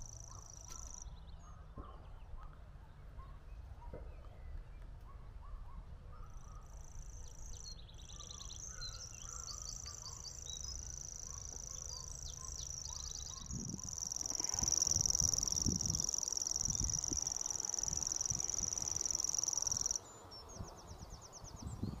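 Grasshopper warbler reeling: a high, steady trill that breaks off after about a second, starts again about six seconds in, grows louder in its last several seconds and cuts off suddenly near the end. Other small birds call faintly under it, over a low wind rumble.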